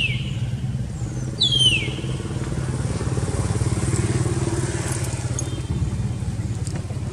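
An engine running steadily with an even low hum, with two high, falling whistles in the first two seconds.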